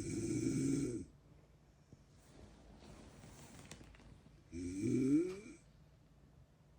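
A man snoring in his sleep: two loud snores about four seconds apart, the second rising in pitch, with a faint breath between them.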